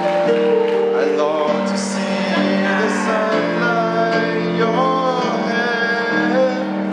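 A young man singing into a microphone over piano accompaniment, the voice amplified through the hall's sound system.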